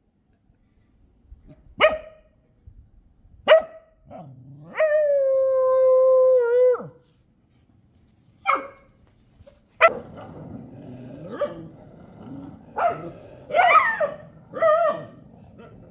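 Street dogs barking in single sharp barks, with one long, steady howl lasting about two seconds around the middle, then a quick run of several barks near the end.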